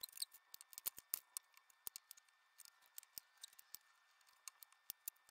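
Small knife cutting the skin off the ends of raw potato cylinders on a tile: a string of faint, irregular sharp clicks as the blade slices and meets the tile.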